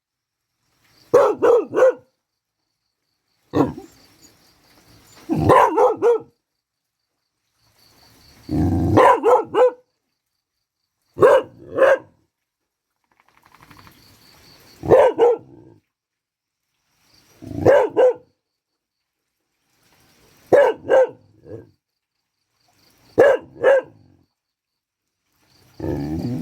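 A dog barking in short bursts of two to four barks, a burst every two to three seconds, with silence between them.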